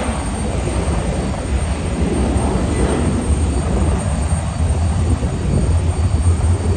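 Embraer E190's twin GE CF34 turbofan engines at takeoff thrust during the takeoff roll, a steady low rumbling roar heard from a distance.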